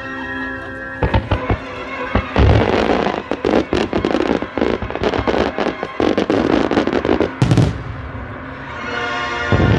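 Fireworks bursting in rapid succession over a music soundtrack: a quick string of sharp bangs and crackles starts about a second in, with a loud burst about three-quarters of the way through.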